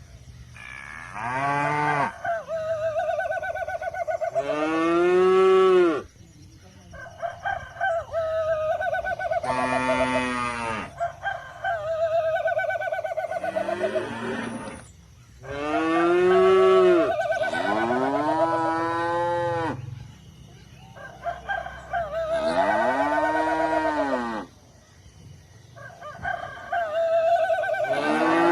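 Roosters crowing again and again, long drawn-out crows that rise and fall in pitch, some held on a steady note, with one bird's crow often overlapping another's.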